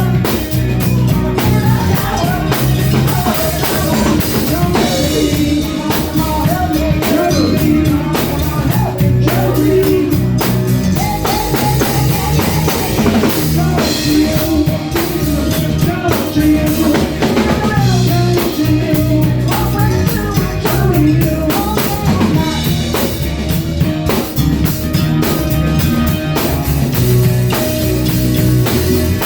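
Live band playing a song, with a drum kit keeping a steady beat under bass and a wavering melodic line.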